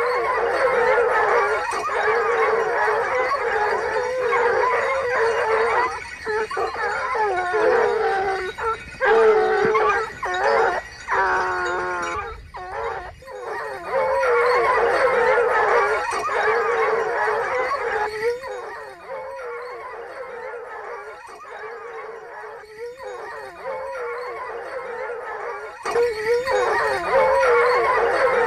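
A pack of Ariégeois hounds bays together in full cry, many howling voices overlapping as the hounds run on a wild boar's trail. The chorus drops back for several seconds about two-thirds of the way through, then swells again near the end.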